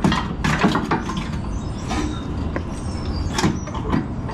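Irregular metallic clicks and clanks of a hand wrench working a bolt on a car's steering rack, over a steady low rumble.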